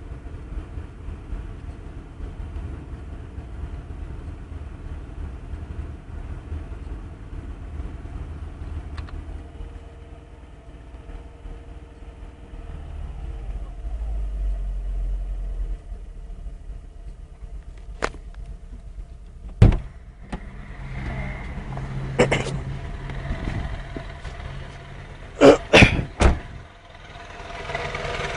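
Car engine running steadily with a low rumble. In the last third, several sharp clicks and knocks sound over it, the loudest a cluster a couple of seconds before the end.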